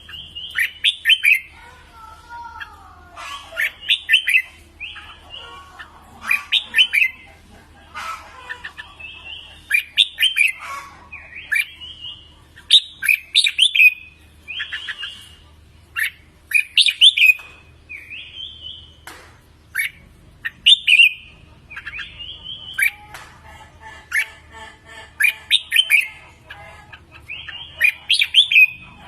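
Red-whiskered bulbul singing: short, loud whistled phrases repeated every second or two, over a faint low hum.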